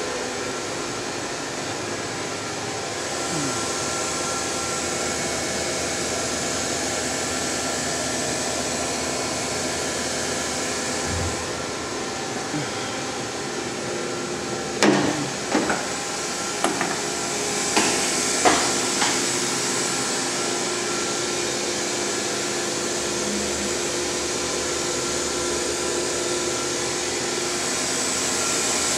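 Steady whirring hum of a powered-up Hurco VM II CNC vertical mill, with several steady tones running through it. A handful of short sharp knocks come about halfway through.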